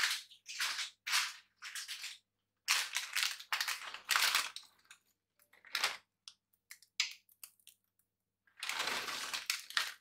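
Plastic packet of chocolate chips crinkling in short bursts as it is handled and chips are shaken out of it, with two longer stretches of rustling about three seconds in and near the end.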